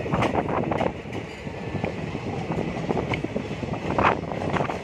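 Passenger train coaches running along the track, heard from inside a moving coach: a steady rumble with irregular wheel clatter and sharp knocks over the rails, the loudest knock about four seconds in.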